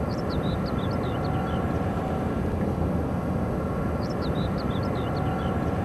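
Bucket-wheel excavator at work: a steady low rumble with a faint machine hum. A small bird sings a short falling phrase of chirps twice over it.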